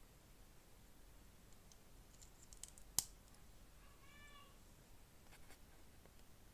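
Small LEGO plastic pieces clicking as they are fitted together, with one sharp snap about three seconds in. About a second later comes a faint, short high-pitched cry that rises and falls.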